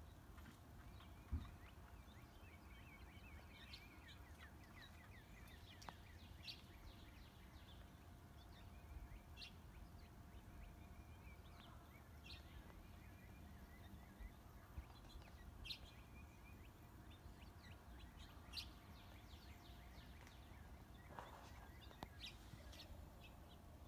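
Faint outdoor ambience: small birds chirping and calling now and then over a low steady rumble, with a soft thump about a second in.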